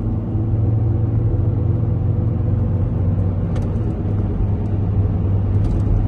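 Steady drone of a car driving on a paved road, heard from inside the cabin: engine and tyre noise with a strong low hum.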